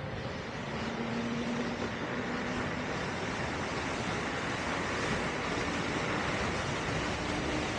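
Extreme Bull Commander GT Pro electric unicycle being ridden: a steady rush of wind on the microphone and tyre noise, with faint humming tones that come and go.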